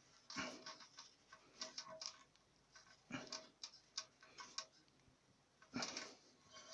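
Faint clicks and knocks of plastic toilet-cistern fittings being handled as the flush valve is screwed onto the cistern: light scattered ticks, with louder knocks about half a second in, about three seconds in and near the end.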